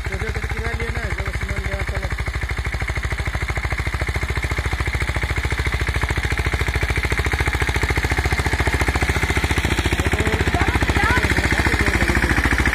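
Mahindra 215 compact tractor's single-cylinder diesel engine running steadily with an even, rapid firing beat while it pulls a rotavator through the soil, getting louder near the end as the tractor comes close.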